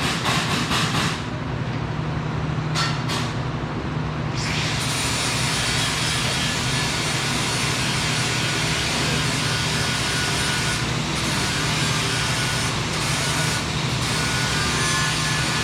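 Metal-shop noise: a quick run of sharp strikes, two more strikes about three seconds in, then a steady high hiss that starts about four and a half seconds in and breaks off briefly a few times, over a steady low hum.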